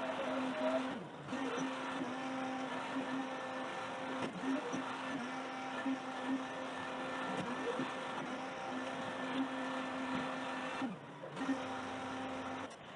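Garbage truck running: a steady diesel hum with a droning tone, dropping out briefly twice, about a second in and near the end.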